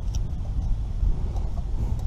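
Wind buffeting the camera's microphone, an uneven low rumble, with a few faint rustling clicks as nettle leaves are picked off their stems.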